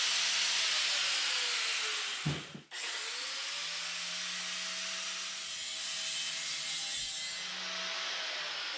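Power cutting tool cutting through steel C-channel: a steady rasping hiss over a motor whine. It breaks off briefly with a thump about two and a half seconds in, then carries on.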